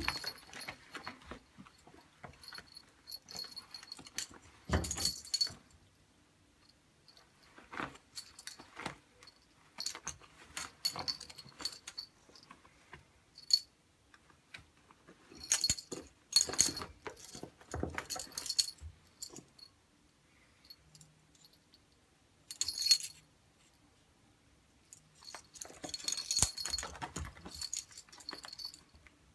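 Small metallic jingling from a kitten's collar in scattered bursts as an Egyptian Mau kitten rolls and tussles, mixed with scuffling and rustling against a shaggy cotton bath mat. The bursts come and go with quiet gaps between, the busiest near the middle and again near the end.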